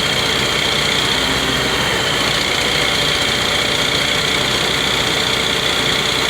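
An engine running steadily under a constant load, with a steady high whine over it.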